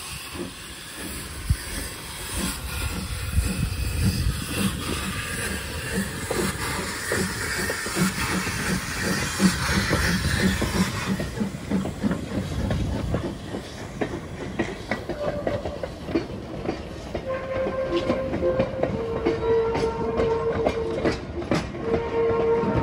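Small steam tram locomotive pulling away, hissing steam with an even chuffing beat. The hiss stops about halfway through, and the wooden tram carriages then roll past with sharp rail clicks and a squeal from the wheels near the end.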